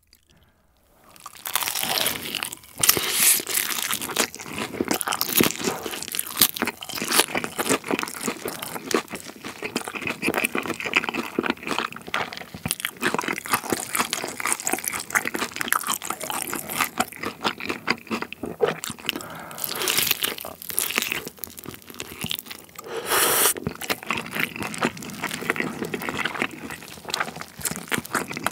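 Close-miked eating of a sauced fried-chicken drumstick: after about a second of near silence, bites crack through the crispy coating, followed by steady wet chewing and crunching. The loudest crunches come about 3, 20 and 23 seconds in.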